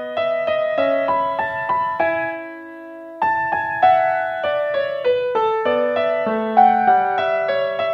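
Background piano music: a gentle melody of single notes struck one after another. About two seconds in, one note is held more softly for about a second before the melody picks up again.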